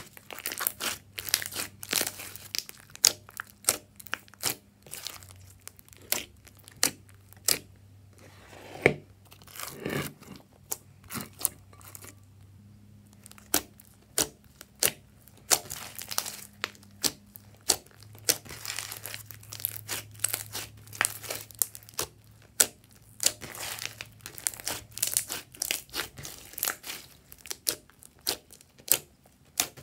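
Hands kneading and pressing glossy slime, giving a dense, irregular run of sharp wet crackles and pops.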